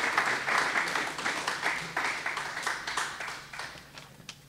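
Audience applauding, a dense patter of many hands clapping that dies away in the last second.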